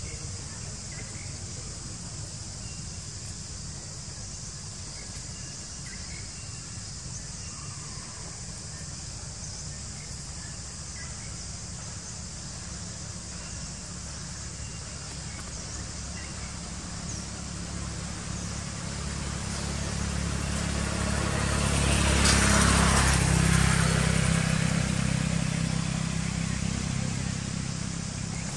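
A motor vehicle passing by, swelling over several seconds to its loudest about two-thirds of the way through, then fading. Under it runs a steady high drone of insects.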